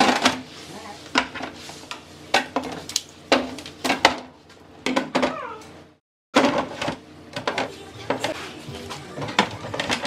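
Plastic milk jug, soda bottles and juice cartons knocked and set down on the plastic door shelves of a refrigerator: a run of irregular clunks and clicks. The sound drops out completely for a moment about six seconds in.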